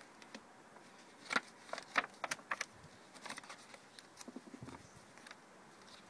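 Paper pages of a thick collaged art journal being handled and turned: a run of short, crisp paper crackles and rustles, thickest between about one and three seconds in, then lighter.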